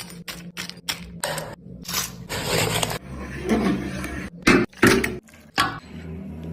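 Kitchen handling sounds: a quick run of clicks, knocks and scrapes, with a steady low hum underneath.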